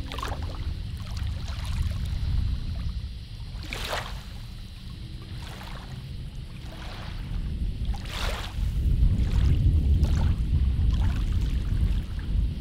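Small waves lapping and splashing on a lake, with wind rumbling on the microphone. Two louder splashes come about four and eight seconds in.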